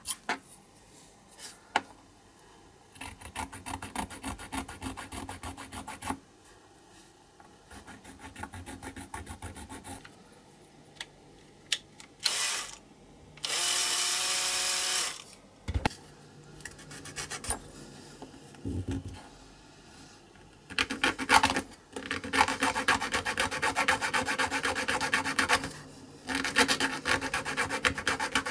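Small hand file scraping a small metal model part in runs of quick strokes, with pauses between them. The longest and steadiest run is near the end. About halfway there is one louder steady noise lasting about a second and a half.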